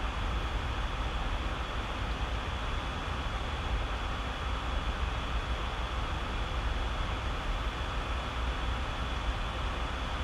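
Steady background hiss with a low hum underneath, even throughout, with no distinct paper rustles standing out.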